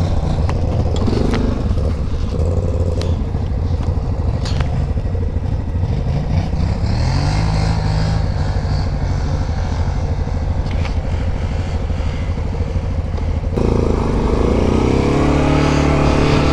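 Yamaha Grizzly 700 ATV's single-cylinder four-stroke engine running at idle, rising in revs about seven seconds in and then holding steady. Near the end it runs harder, with the pitch wavering up and down.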